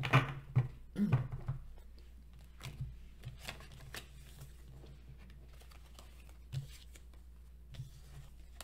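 A tarot deck being shuffled and handled: quick papery flicks and rustles of card stock in the first second and a half, then a few scattered soft card taps over a faint steady low hum.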